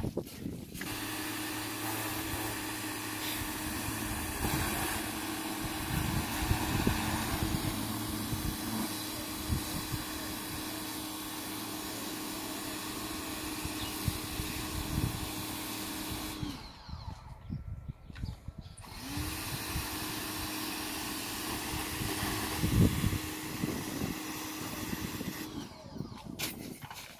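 Pressure washer running with a steady motor hum and the hiss of the spray. It stops about two-thirds of the way through, then starts up again with a rising hum a couple of seconds later, and stops near the end.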